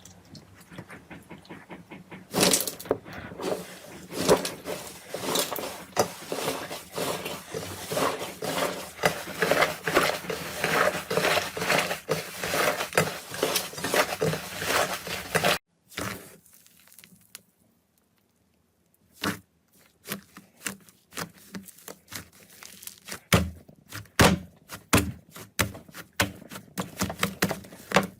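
Slime being squeezed, pressed and poked by hand, making dense crackling and popping clicks. About halfway through it cuts off abruptly to near silence. Sparser pokes and pops then resume and build again near the end.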